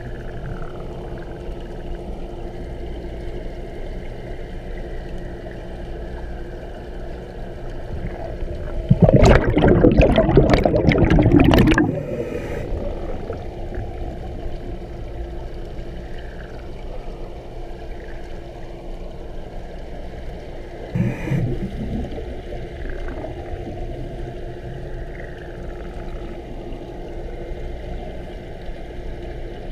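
Underwater sound heard through a scuba diver's head-mounted GoPro: a steady low hum, broken about nine seconds in by a loud rush of exhaled bubbles from the diver's regulator lasting about three seconds, and again briefly about twenty-one seconds in.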